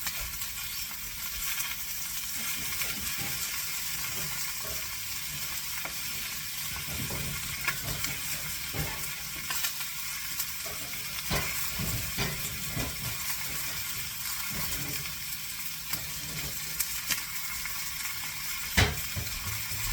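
Butterflied chicken searing skin side down in smoking-hot oil in a pan, a steady sizzle with light crackles. A sharper knock comes near the end.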